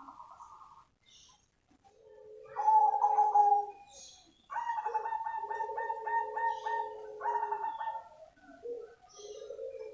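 Zebra dove (black cemani perkutut) cooing its song. A short phrase comes early, then a longer two-toned coo about two seconds in. From about four and a half seconds in, a rapid run of staccato coos follows at about three a second, and a further coo phrase comes near the end.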